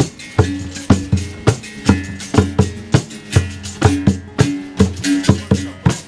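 Hand drums played in a steady rhythm: deep drum beats about twice a second, with sharper knocking strokes between them.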